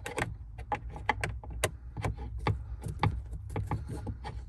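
A screwdriver backing out a Phillips screw that holds a Jeep Wrangler's blend door actuator under the dash: a run of sharp, irregular clicks and ticks from the tool and the plastic parts, a few a second, over a low steady hum.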